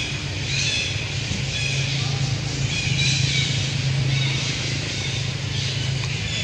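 A steady low hum with repeated short spells of high-pitched chirring over it.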